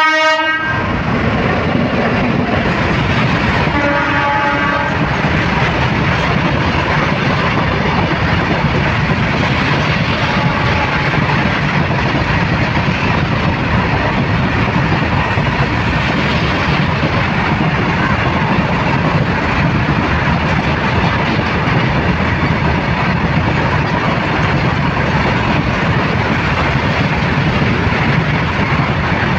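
Goods train of covered wagons passing at speed: a locomotive horn blast ends just as it arrives, a second short horn blast sounds about four seconds in, then the loud, steady noise of the wagons rolling past continues.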